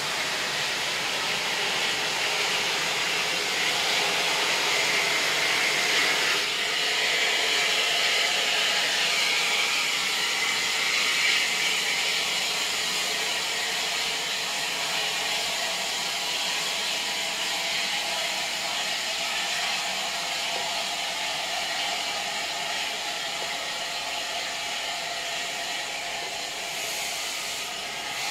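Steam hissing steadily and loudly from the standing Southern Railway Bulleid Battle of Britain class Pacific 34070 Manston, an even hiss with no beat of the exhaust.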